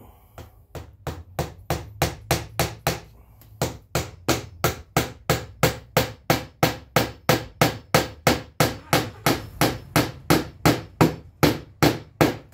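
Hammer striking in a steady run of quick blows, about three a second, growing louder after the first few seconds.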